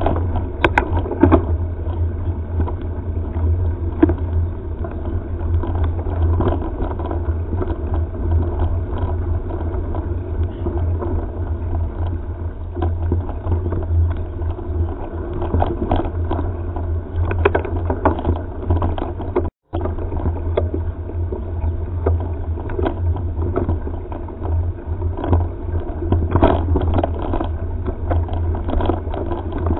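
Riding noise from a mountain bike on a rough dirt forest trail, picked up by a head camera: a steady low wind rumble on the microphone with frequent clicks and rattles over bumps. The sound cuts out for an instant about two-thirds of the way through.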